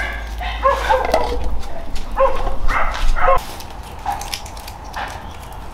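A dog whining and yipping in a string of short high calls, louder in the first half and fainter after.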